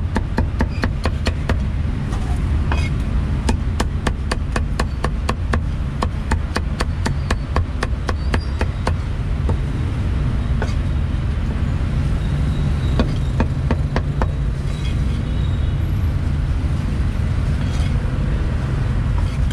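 Meat cleaver chopping roast pork on a thick round wooden chopping block: a fast, even run of sharp chops for the first nine seconds or so, then slower, scattered single chops. Street traffic rumbles underneath.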